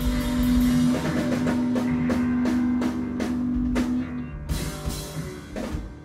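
Three-piece garage rock band playing live, guitar, bass and drums, at the close of a song: a held note rings over a run of drum and cymbal hits, then two last crashes about four and a half and five and a half seconds in, and the sound dies away.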